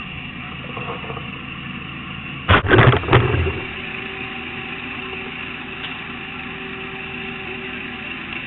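A vehicle engine idling steadily. About two and a half seconds in, a loud burst of rustling or handling noise lasts about a second.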